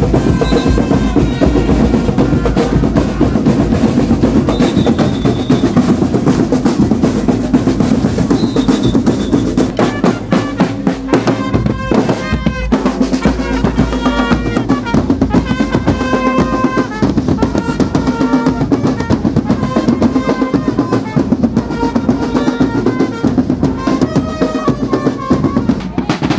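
Street drum-and-brass band playing: snare drum rolls and bass drum beats keep up a fast, driving rhythm, with horn notes held over the top.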